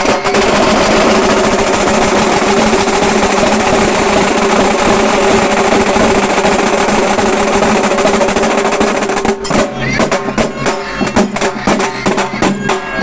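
Halgi frame drums played in a fast, continuous roll that breaks into a distinct rhythmic beat about nine seconds in.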